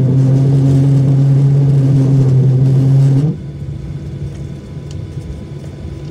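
Boeing 737-800 cabin noise while taxiing after landing: a steady engine hum and rumble with a strong low drone, which drops suddenly to a quieter steady rumble a little over three seconds in.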